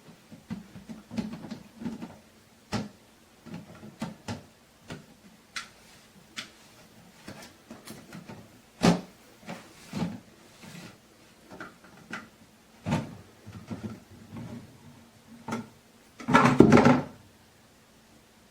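Plastic pet food storage container and its lid being handled: a run of irregular knocks and clicks of hard plastic, with one sharp knock about nine seconds in and a louder clattering burst near the end.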